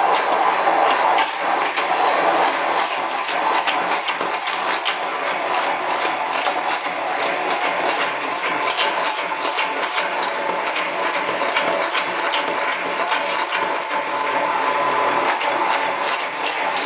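Immersion blender running steadily in a glass measuring cup, emulsifying soy milk as oil is drizzled in to make eggless mayonnaise. It gives an even whir with many small clicks throughout.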